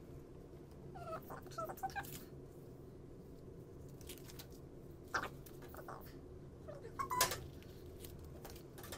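Paper sheets rustling and crinkling as they are handled and folded, over a low steady hum. About a second in there are a few short, high squeaky chirps.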